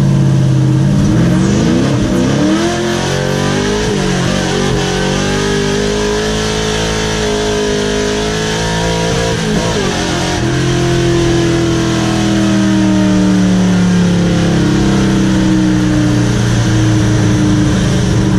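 Race truck's engine heard from inside the bare cab while driving: it revs up through the gears at the start, its pitch climbing and breaking at each shift, then settles into a steady cruising drone. The drone sags and climbs again about halfway through.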